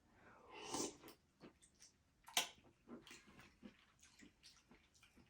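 Quiet chewing and mouth sounds of someone eating, with a sharper click about two and a half seconds in.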